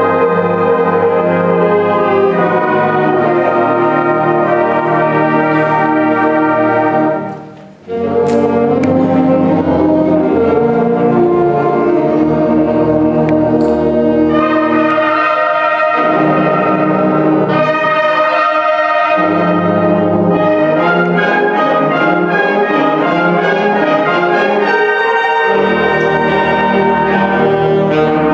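Concert band playing sustained chords, with the brass to the fore and a brief break about seven seconds in.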